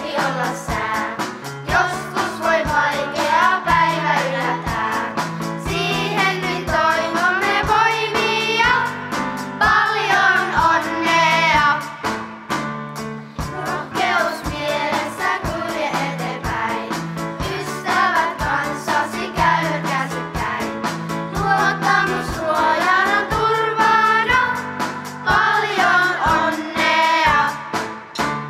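Children's choir singing a congratulatory song in unison over an instrumental accompaniment with a steady beat and bass line; the song ends near the close.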